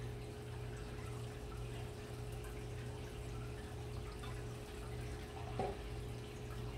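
Steady low background hum, with one brief faint sound about five and a half seconds in.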